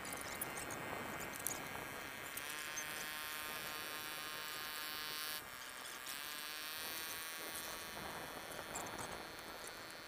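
A small motor buzzing with a steady whine that cuts off suddenly about five seconds in, then starts again with its pitch rising.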